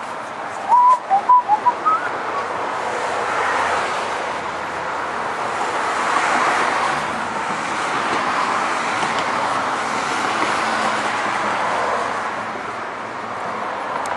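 Steady noise of passing road traffic that swells and fades every few seconds, with a quick run of short bird chirps about a second in.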